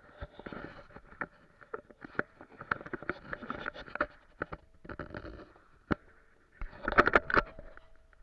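Handling noise from a camera being carried over the ice: irregular knocks, clicks and scraping rustle, with a burst of louder knocks about seven seconds in as it is moved down toward the ice surface.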